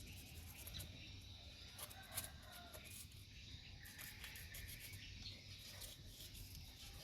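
Quiet outdoor background: faint bird chirps and a steady insect-like high tone, with scattered light clicks.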